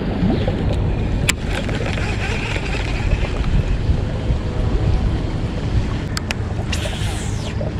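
Steady wind rumble on the camera microphone over open water, with a few sharp clicks about a second in and again near the end.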